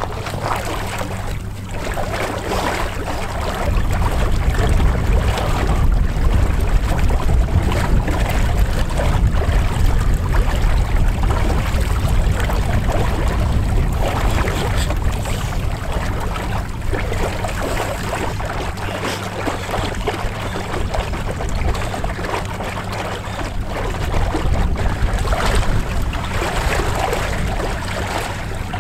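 Storm-strength cold wind rumbling loudly on the microphone, with water sloshing and splashing around a person bathing in an ice hole. The rumble grows louder about four seconds in.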